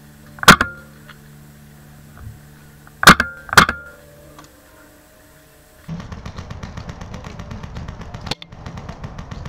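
Three sharp paintball marker shots close to the microphone, each with a brief ring: one shot, then about two and a half seconds later two more half a second apart. About six seconds in, the sound changes suddenly to a steady, rapid clatter of ticks.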